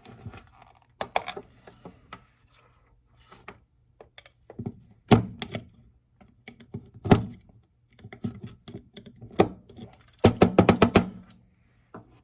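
Hard plastic clicks and knocks as the desk phone's kickstand parts are handled and repositioned, with two louder knocks in the middle and a quick run of rattling clicks near the end.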